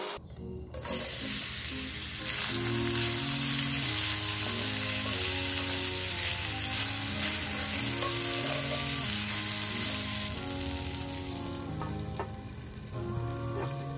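Diced raw potatoes frying in hot oil in a cast iron skillet, stirred with a wooden spatula. It is a loud, dense sizzle that starts suddenly about a second in and dies down after about ten seconds.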